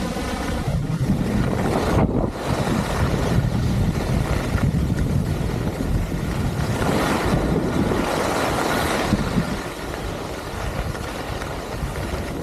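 Wind buffeting the microphone during a fast downhill run on snow, with the hiss of edges scraping the snow swelling up a few times.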